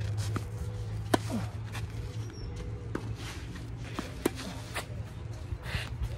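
Tennis rally: two loud, sharp racquet-on-ball hits close by, about three seconds apart, with fainter hits from the far end of the court between them. Shoes scuff on the court surface, over a steady low hum.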